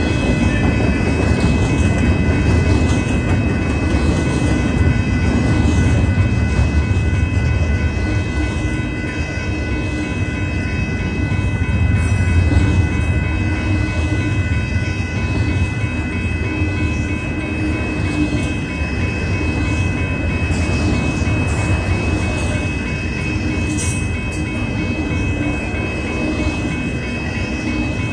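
Union Pacific double-stack container train rolling past close by: a steady low rumble of steel wheels on rail with clatter from the cars. Several steady high ringing tones sit over it throughout.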